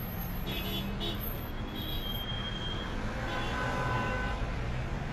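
Road traffic in a slow jam: a steady low rumble of idling and creeping vehicles, with a few faint high tones held briefly about two to four seconds in.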